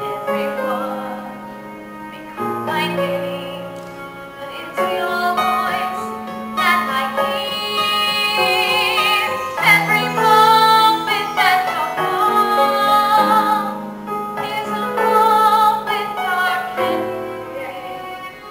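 A woman singing in a theatrical style over instrumental accompaniment, with a wide vibrato on her long held notes.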